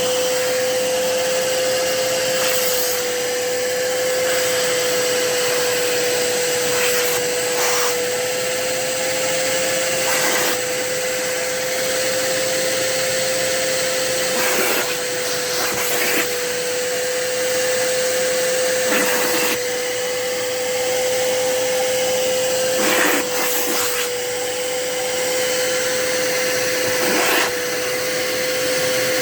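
Kärcher SE 4 spray-extraction carpet and upholstery cleaner running with its suction motor on, a steady whine over a rush of air, with brief louder rushes every few seconds.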